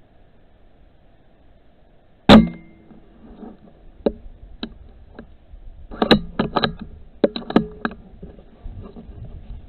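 A single rifle shot taken at a rat through a night-vision scope, a sharp crack with a brief ringing tail, about two seconds in. A run of smaller clicks and clacks follows, about a dozen spread over the next five seconds, over a faint steady recorder hiss.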